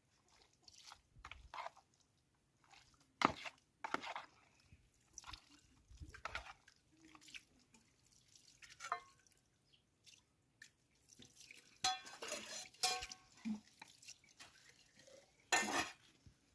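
Irregular clinks, taps and knocks of dishes and cooking utensils being handled, with a brief cluster of ringing clinks about twelve seconds in.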